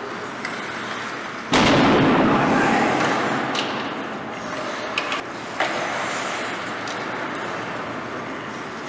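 A sudden loud bang about a second and a half in, ringing on in the ice rink's echo for a couple of seconds. Two sharp clacks of hockey play follow around five seconds in.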